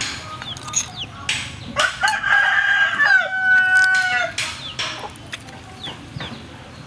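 A rooster crowing once, a long drawn-out call of about two seconds starting about two seconds in. A few short clinks sound before and after it.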